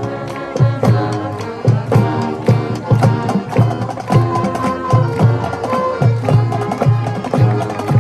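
High school marching band playing, with brass holding notes over a steady drum beat.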